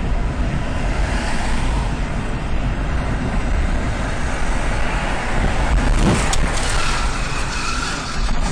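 Steady road and wind noise of a car driving on a highway at about 65 km/h, heard from a dashcam inside the cabin, with a brief knock about six seconds in.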